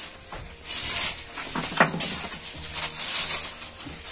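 Scuffing footsteps on rock and grit, with clothes and hands brushing against rock walls as people squeeze through a narrow cave passage: an uneven run of scrapes, rustles and small knocks.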